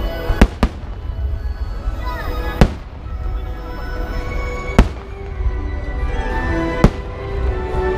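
Aerial fireworks shells bursting with five sharp bangs, two close together near the start and then one about every two seconds, over a steady low rumble and the show's background music.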